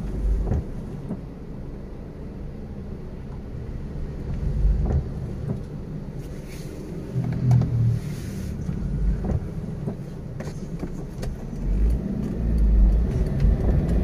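Car cabin noise while driving slowly in traffic on a wet road: a steady engine and tyre rumble with irregular low thumps and a few light clicks.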